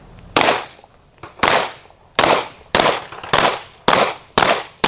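A string of 9mm pistol shots fired at a steady pace, eight in all, about one every half to two-thirds of a second, each with a short echoing tail.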